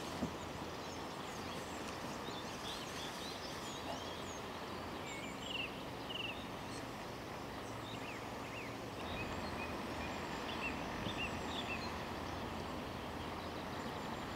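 Small songbirds chirping in many short, high calls over a steady rushing background noise.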